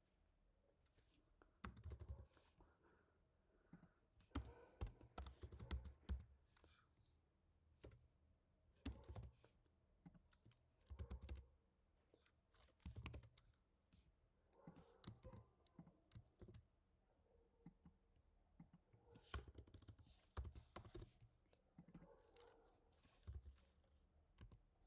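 Computer keyboard typing in short bursts separated by pauses.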